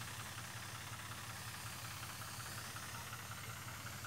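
Faint, steady low hum of a tractor engine running, with an even hiss over it from the crop sprayer.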